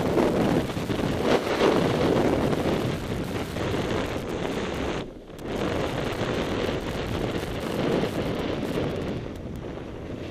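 Wind buffeting a helmet-mounted camera's microphone, mixed with the hiss and scrape of a rider sliding down a groomed snow slope. The noise drops out briefly about halfway through and grows quieter near the end as the rider slows.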